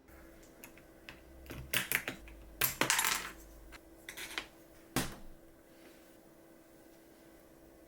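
Scattered hard plastic clacks with a short clatter about two to three seconds in and a single sharp knock near the middle, as the mechanical keyboard and its parts are handled.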